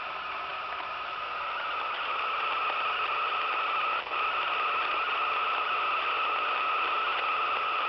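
Radio receiver giving out a steady hissing, static-like noise with a faint whine in it. It grows louder about two seconds in and cuts out for a moment about four seconds in.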